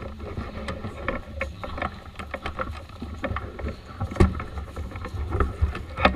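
Wind rumbling on the microphone, with irregular rustles and clicks and one sharper knock about four seconds in.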